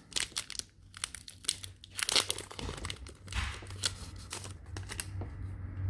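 Foil wrapper of a Pokémon card booster pack crinkling and tearing as it is opened and handled, a run of sharp crackles that is busiest in the first half and thins out toward the end.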